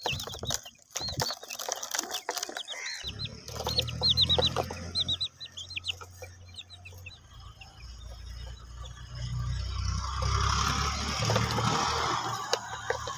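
Baby chicks peeping, with quick runs of short, high cheeps through the first half. After that the cheeps fade under a steady rushing noise with a low rumble, which is the loudest part.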